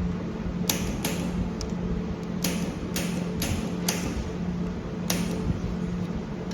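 Handheld pulsed YAG laser welder firing on thin stainless steel: a string of sharp snaps at uneven spacing, one per laser pulse, over the machine's steady hum.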